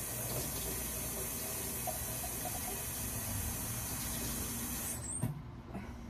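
Kitchen faucet running water into the sink, shut off abruptly about five seconds in, followed by a single light knock.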